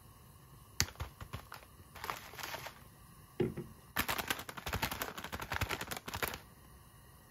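Plastic instant-noodle packet crinkled and squeezed in the hands: a few sharp crackles about a second in, then a dense run of crinkling and crackling from about four seconds to near the end.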